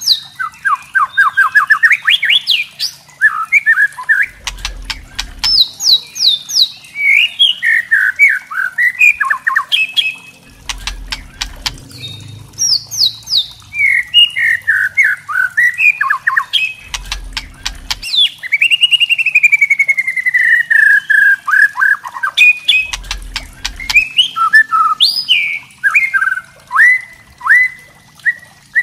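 White-rumped shama singing a fast, varied song of sharp whistled phrases mixed with harsh clicking rattles (the 'kretekan' call), with one long falling whistle about two-thirds of the way through.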